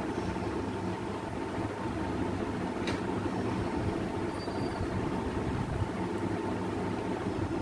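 Steady low mechanical hum from a running motor, with a few constant tones in it. One light metallic click about three seconds in comes from the steel serving spoon used to ladle the curry.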